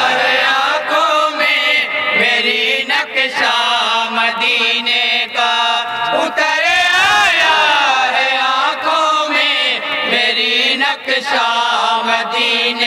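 A group of men singing an Urdu naat in unison, in long melodic lines, with no instruments.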